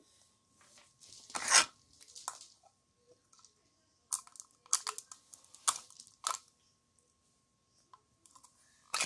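Scattered short crackling, tearing noises, the loudest about a second and a half in, as stretchy chewing gum is pulled from the mouth and a small clear plastic container is handled.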